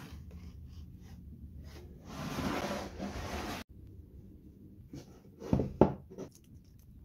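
Hands handling a homemade plywood-and-aluminium router table. A scrape lasts about a second and a half and cuts off suddenly, then a few light knocks come near the end, one much louder than the rest.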